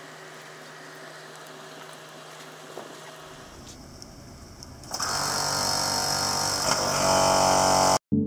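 A steady low hum, then from about five seconds in a small engine on a portable machine runs loudly with a buzzing, even pitch. It gets louder near the end and cuts off abruptly.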